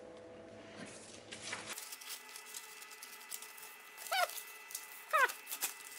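Two short animal whimpers, each sliding down in pitch, about a second apart, over a faint steady hum.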